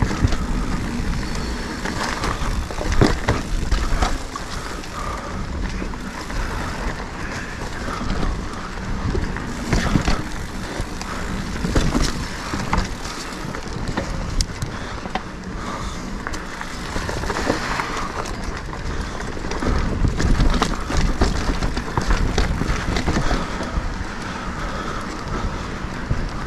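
Mountain bike rolling along a dirt trail: a continuous rumble of tyres on ground, with frequent clicks and rattles from the bike over small bumps.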